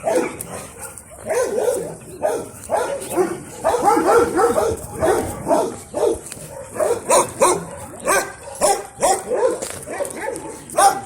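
Dogs barking and yipping, with calls overlapping about four to five seconds in, then coming as quick separate barks in the second half.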